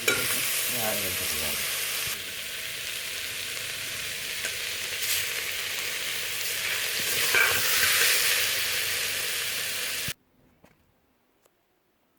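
Chopped capsicum and onion sizzling as they fry in a pan, stirred now and then. The sizzling stops abruptly about ten seconds in.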